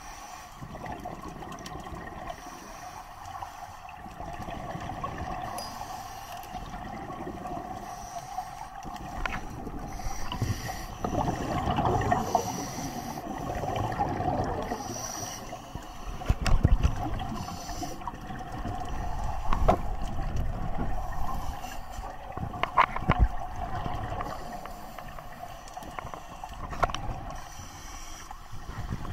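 Underwater sound through an action camera's housing: scuba regulator bubbles rushing out in swells every few seconds as divers exhale, over a steady hum, with a few sharp knocks.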